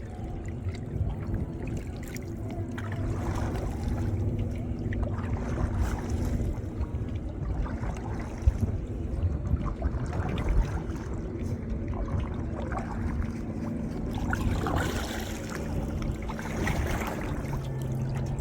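Kayak being paddled: paddle blades dipping and water splashing and trickling off them, over a steady low rumble.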